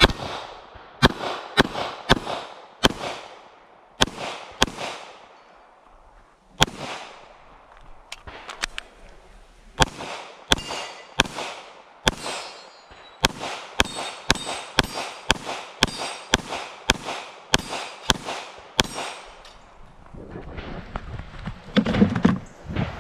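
Handgun shots fired close by, in quick strings of several shots with short pauses between, some followed by a brief metallic ring from the steel targets. The shooting stops a few seconds before the end, giving way to handling noise and a soft clatter.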